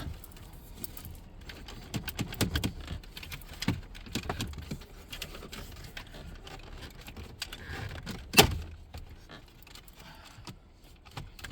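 Scattered clicks and light knocks of a plastic dashboard trim panel being handled, with one sharp, louder knock a little past the middle.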